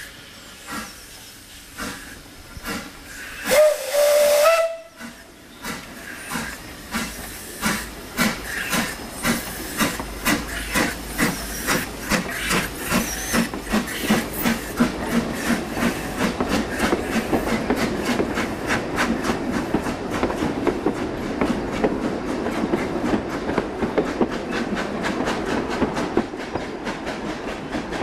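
Isle of Man Railway No. 12 Hutchinson, a Beyer Peacock 2-4-0 tank steam locomotive, gives one short whistle about four seconds in and then starts away with its train. Its exhaust chuffs come quicker and quicker as it gathers speed, over the hiss of steam.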